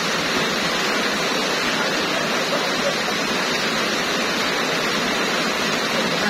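Heavy rain pouring steadily onto a wet road, a dense, even hiss with no let-up.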